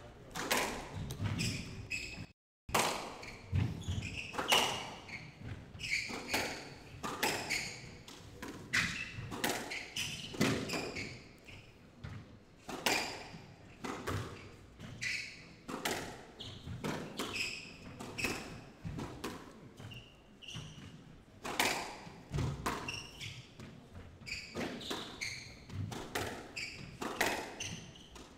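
Squash rally: the ball is struck by rackets and hits the front wall, side walls and floor as a run of sharp knocks, about one or two a second. The sound cuts out for a moment about two and a half seconds in.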